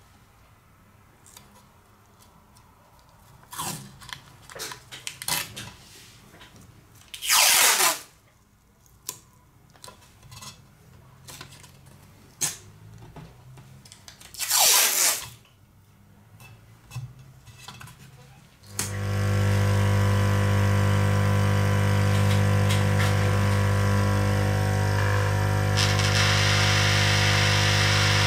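Masking tape pulled off its roll in two long rips, with small taps and rustles as strips are pressed down. About two-thirds of the way through, an electric machine switches on and runs with a steady low hum and hiss, the hiss growing brighter near the end.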